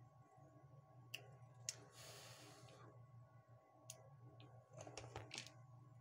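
Near silence over a steady low hum, with faint clicks and taps from small parts and a soldering iron being handled at a drill's carbon brush holder. There is a short hiss about two seconds in and a quick cluster of clicks near the end.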